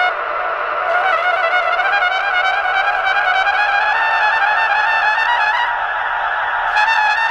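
Trumpet played through a Strymon Timeline delay pedal: a continuous, wavering brass tone that slowly rises in pitch.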